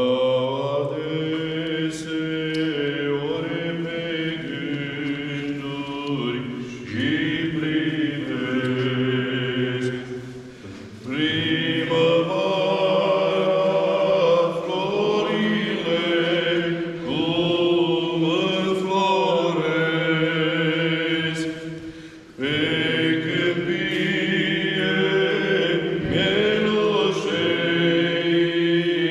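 Two Orthodox clergymen singing a slow chant, one steady low note held under the moving melody line. The singing breaks briefly for breath about ten seconds in and again a little after twenty seconds.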